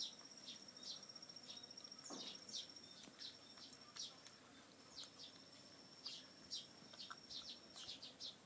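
Faint, repeated short high chirps, roughly two a second, over a steady high-pitched insect trill that breaks off and resumes; about two seconds in, one longer call falls steeply in pitch.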